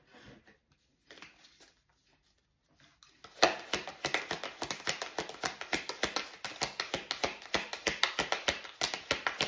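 A deck of oracle cards being shuffled by hand. After a few faint rustles, it starts about three seconds in as a fast, continuous run of soft card slaps and clicks, several a second.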